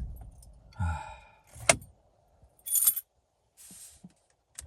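Keys jingling among a few short clicks and knocks, the sound of handling car keys.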